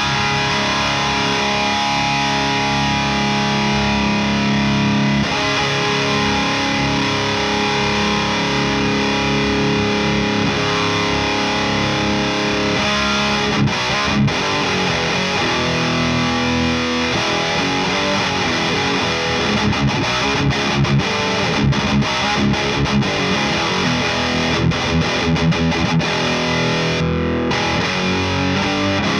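Distorted electric guitar through a Friedman Runt 50 tube amp, pushed by a J. Rockett Rockaway Archer Klon-style overdrive pedal, with the amp's built-in boost off. Held chords ring for the first few seconds, then the playing turns to faster, choppier riffing in the second half.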